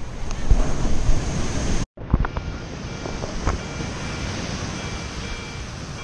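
Ocean surf washing onto a sandy beach, with wind buffeting the microphone. The sound drops out briefly about two seconds in.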